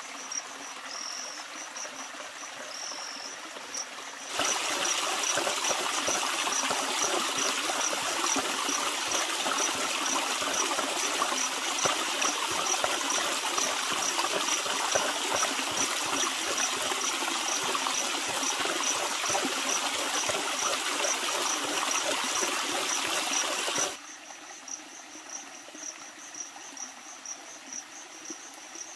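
Steady rush of running water, like a stream, that starts abruptly about four seconds in and cuts off just as suddenly around twenty-four seconds. Regular high chirping of crickets goes on throughout.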